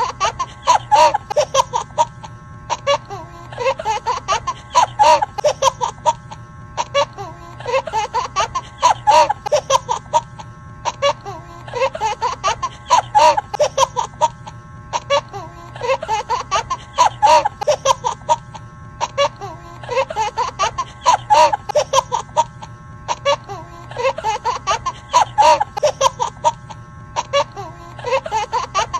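Background music with a looped laughing sound effect, the same burst of laughter repeating about every four seconds.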